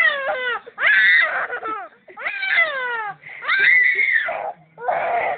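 Young child crying in a series of short, high-pitched wails, most of them falling in pitch, about five in a row with brief gaps between them.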